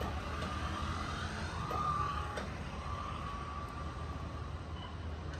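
Heavy truck engine rumbling steadily, with a high wavering whine over it that dips and rises during the first few seconds.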